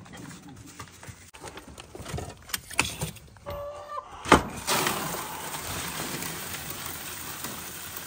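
Ground feed pouring from the chute of a red metal gravity feed bin into a plastic bucket: a few knocks of handling, a sharp clack about halfway through as the flow starts, then a steady rushing hiss of the grain running into the bucket.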